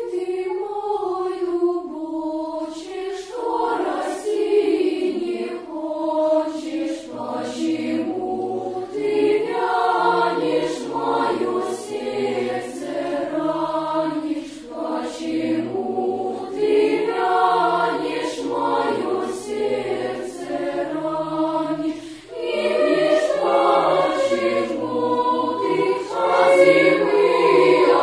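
Children's choir singing together, the song beginning right as the sound opens.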